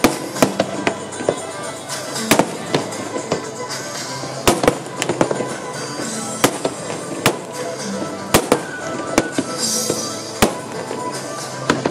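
Aerial fireworks bursting: a quick, irregular run of sharp bangs and cracks, with music playing steadily underneath.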